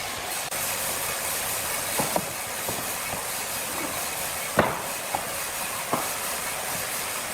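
Sawmill machinery running with a steady hissing noise, broken by a few sharp knocks of timber, the loudest about halfway through.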